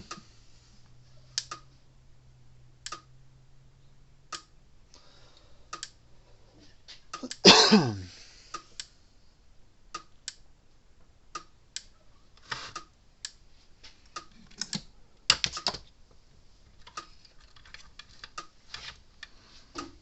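Gallagher M800 electric fence energizer pulsing after being plugged in, a sharp tick about every one and a half seconds as it fires. A louder short sound with a falling pitch comes about seven and a half seconds in, with a few scattered knocks.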